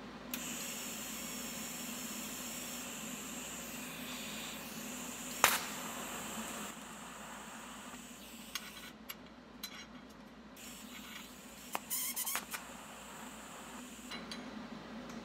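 TIG welding arc on a mild-steel shifter rod, hissing steadily for about six seconds with one sharp snap near the end of that run. After it the arc is quieter, with scattered ticks and a short burst of crackling about twelve seconds in.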